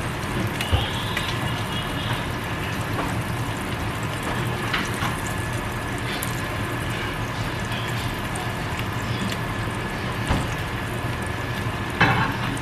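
Egg frying in sausage grease in a skillet: a steady sizzle with scattered small pops.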